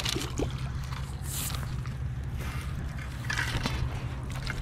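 A hooked skipjack herring splashing at the water's edge as it is reeled in and swung up out of the water, with a few irregular splashy, scraping bursts over a steady low hum.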